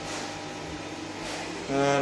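A low steady hum with faint hiss. About a second and a half in, a loud drawn-out shout from a person's voice starts on one held pitch.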